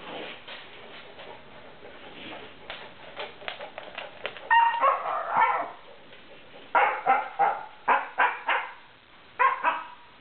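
Siberian husky puppy making weird noises: a longer pitched call a little under halfway through, then a quick run of about five short sharp calls and two more near the end.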